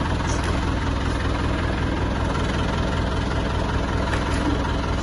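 An engine running steadily at idle, a low even rumble with no change in speed.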